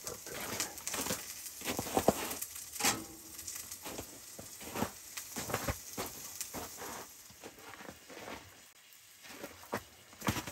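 Irregular crackling and popping over a faint hiss from a Winnerwell wood-burning camp stove, with diced potatoes and onions frying in a skillet on top.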